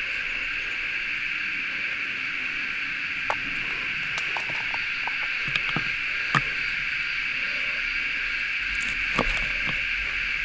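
Steady chorus of insects buzzing in the bush, with a few scattered light knocks and taps, the sharpest about six seconds in, as fish skins and frames are handled on a wooden chopping board.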